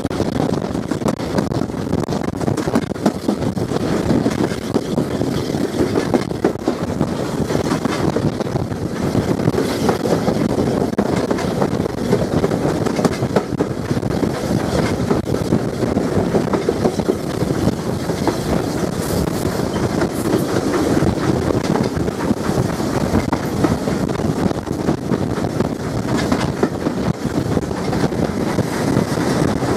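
S15 class steam locomotive No. 847 running along the line, heard close from beside its cab: a steady rush of wheels on the rails and the moving engine, with wind buffeting the microphone.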